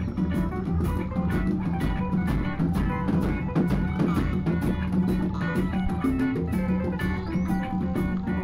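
Improvised instrumental jazz jam: piano with a bass line and a drum kit keeping a steady beat.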